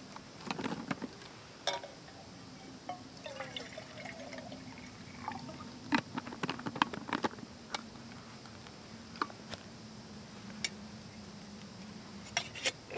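Water poured from a plastic drink bottle in a steady stream, with sharp clicks and knocks from handling the bottle and metal cups.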